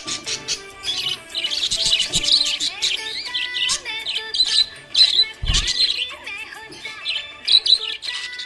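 Budgerigars chirping and warbling, rapid overlapping chirps, with a brief low thump about five and a half seconds in.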